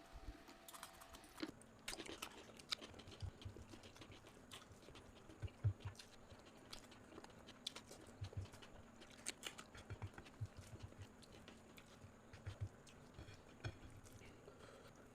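A person chewing and eating food, with irregular soft clicks and low thumps from the mouth.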